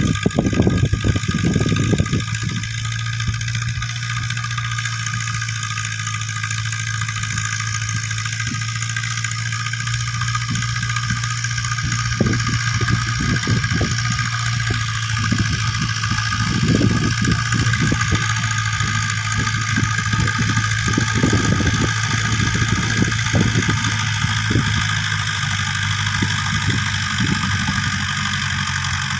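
Mahindra 575 tractor's diesel engine running steadily under load as it pulls a 7-foot Shaktiman rotavator through the soil. The engine keeps an even drone without straining, taking the load easily.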